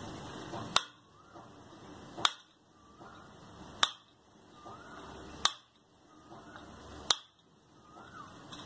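Knife blade cutting through soft boiled gram-flour dough and striking a stainless steel plate: five sharp clicks, evenly spaced about a second and a half apart.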